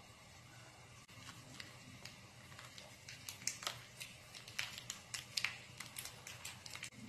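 Plastic sauce sachet crinkling and crackling as it is squeezed out over a bowl, with sharp crackles thickest in the second half. Before that come a few light ticks from a spice shaker, over a faint steady hum.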